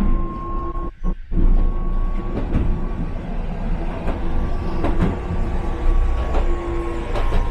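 Hankai Tramway streetcar running along the track, heard from inside the car: a steady rumble with scattered clicks of the wheels over rail joints and a thin, steady high whine. The sound briefly drops out about a second in.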